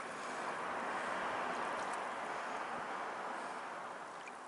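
Small wave washing up onto a sandy shore: a hiss of moving water that swells over the first second or so and then slowly fades.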